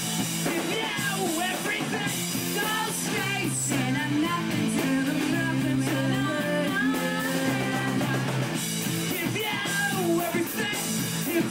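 Live rock band playing a song: electric guitar, bass and a drum kit with cymbals, with a man singing over them.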